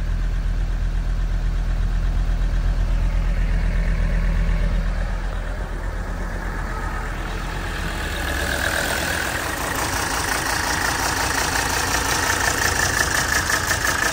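1980 Mercedes 300SD's five-cylinder turbo diesel idling. A steady low drone for the first few seconds gives way, about halfway through, to a fast clatter with a rattle from a loose part. The owner says the rattle comes from that part, not the engine, since it stops when the part is held down.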